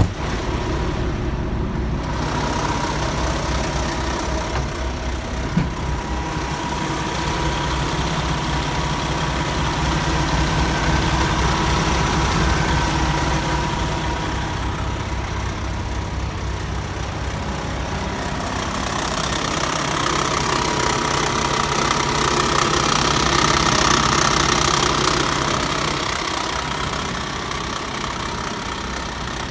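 Peterbilt 579 semi-truck's diesel engine idling steadily, with a faint steady whine above it. It grows louder for a while about two-thirds of the way through.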